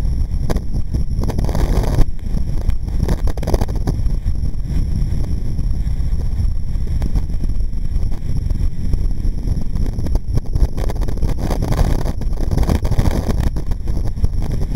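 Wind buffeting the microphone of a camera on a moving vehicle, over a low rumble of road and engine noise, with a single knock about two seconds in.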